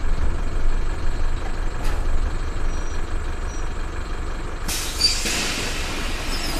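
Bus engine and road rumble heard from the driver's cab while under way, a steady low drone. About two thirds of the way through, a steady hiss starts suddenly on top of it.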